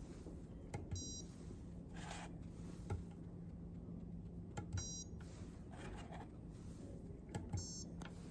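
Piezo buzzer sounding three short electronic beeps, about three seconds apart, each coming just after a sharp click, under a low steady hum.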